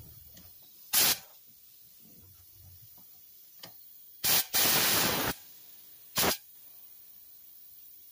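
Blasts of compressed air blowing A/C flush solvent out of an automotive air-conditioning line. There are four short bursts: one about a second in, two close together around four to five seconds in (the second lasting most of a second), and one about six seconds in.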